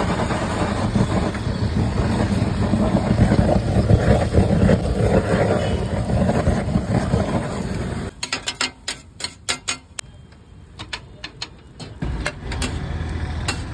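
Handheld butane blowtorch flame burning with a loud, steady rush as it sets an omelette alight on a flat-top griddle. After about eight seconds the flame stops and a run of sharp taps and scrapes of a steel spatula on the griddle follows, before a steady noise returns near the end.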